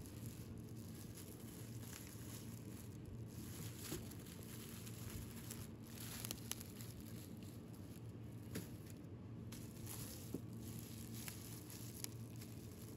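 Thin plastic bread bags crinkling and rustling as they are handled, with a few light clicks, over a steady low background hum.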